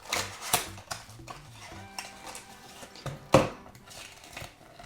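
Small cardboard surprise boxes handled and knocked together: a few sharp knocks, a loud one just past three seconds, with light rustling of packaging between.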